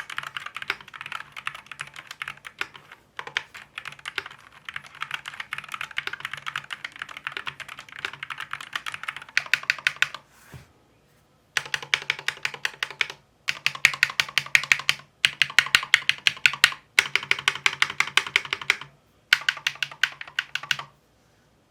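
Akko Fun 60 Pro keyboard with Akko Glare magnetic switches being typed on quickly and steadily. About halfway through, after a brief pause, come five bursts of very rapid keystrokes with short gaps between them.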